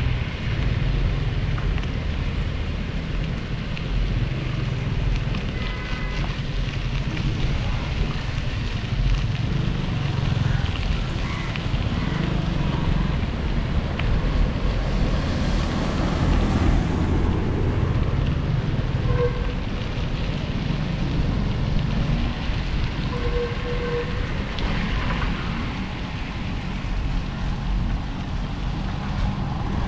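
Wind buffeting the microphone during a bicycle ride, a steady low rumble with road traffic beneath it. A few brief faint tones come through along the way.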